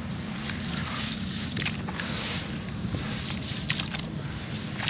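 Hands swishing and stirring soaked, mushy sand-cement in a basin of muddy water, with light sloshing and scattered small crackles, over a steady low rumble.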